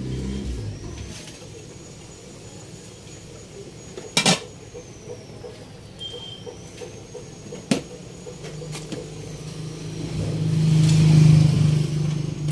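Cooking at a pot of boiling broth: a sharp clink about four seconds in as the glass pot lid comes off, and another sharp knock a few seconds later. In the second half a low steady hum swells and then eases near the end.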